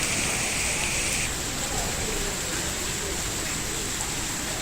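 Heavy rain falling, a steady hiss of rain on surfaces. The higher part of the hiss changes abruptly about a second in.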